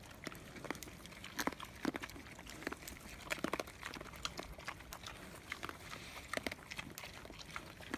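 Several pigs eating grain feed off the ground: a steady run of quick chewing and munching clicks, with a few louder ones between about one and a half and three and a half seconds in.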